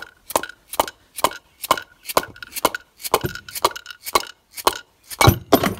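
Dead-blow mallet striking the end housing of a Myers 2.5 HP pump motor, a steady run of about a dozen knocks, roughly two a second, each with a short ring, with a few harder blows close together near the end. The blows drive the housing off the motor's rotor and drive shaft.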